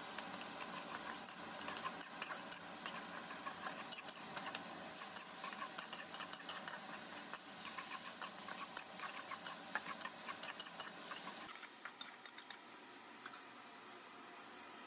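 Food sizzling in a hot pan: a steady hiss with many small crackles and pops. About eleven seconds in it cuts to a quieter, softer hiss.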